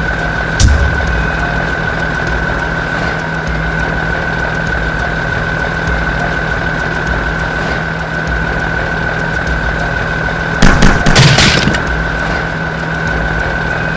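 Cartoon tank sound effect: a steady engine rumble with a constant high whine, one sharp bang about half a second in, and a quick cluster of loud booms near the end.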